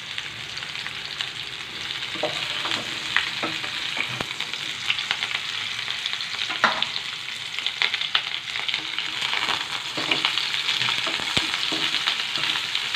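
Parboiled cauliflower florets sizzling and crackling steadily in hot mustard oil in a kadhai on a high flame. Near the end a spatula scrapes the pan as the florets are turned.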